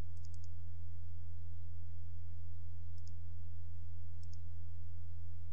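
Steady low electrical hum, with a few faint computer mouse clicks over it: a quick run of clicks at the start, then a pair about three seconds in and another about four seconds in.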